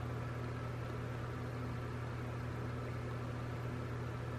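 Steady low hum with a light even hiss: room tone, with no distinct handling sounds standing out.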